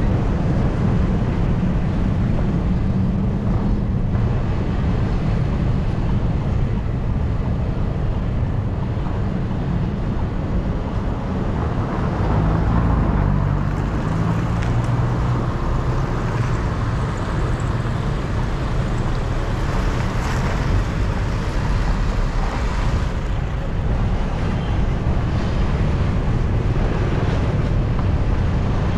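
Steady wind rumble on the microphone of a camera moving along a street, with vehicle and traffic noise underneath.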